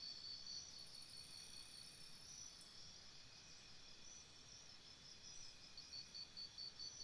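Faint jungle ambience of insects calling: a high chirp pulsing about four times a second, which drops out about a second in and returns near the end, over steady high trills, with a faster, higher trill during the first couple of seconds.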